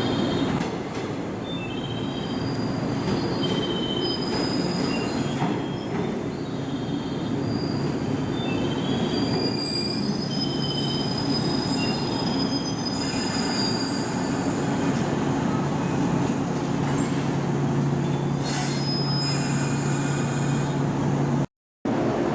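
Train wheels squealing on the rails as a train moves through the station: many short high-pitched squeals over a steady rumble, with a low steady hum joining about halfway through. The sound cuts out for a split second near the end.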